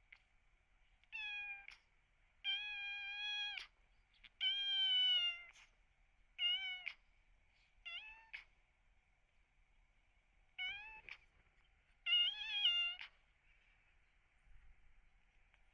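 Young kitten with cat flu meowing about seven times, high and drawn out, two of the calls lasting about a second. The cries sound pained and strained to the owner.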